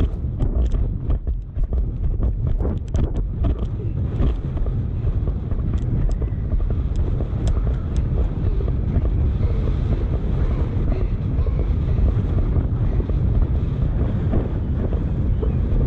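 Heavy wind buffeting a rider-mounted GoPro's microphone as a horse gallops, with sharp hoofbeat clicks through the first few seconds and a few more a little later.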